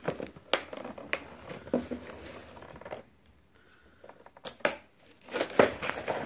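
Clear plastic and cardboard toy packaging crinkling and rustling as it is handled and opened, with sharp crackles. It goes quiet for about a second and a half midway, then crackles again.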